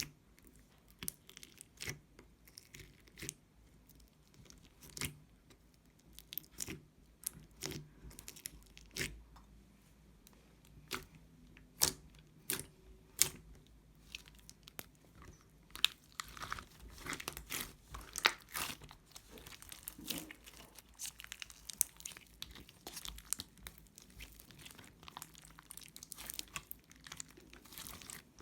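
Foam-ball slime being squeezed and pressed, its foam beads giving crunchy clicks and pops. The clicks come one at a time at first, then thicken into a denser crackle about halfway through.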